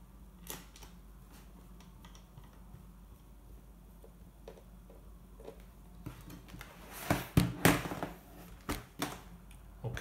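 Faint scattered clicks of hands on a laptop's plastic bottom panel, then a run of loud knocks and clatters from about seven to nine seconds in as the laptop is turned over and set down on a wooden table.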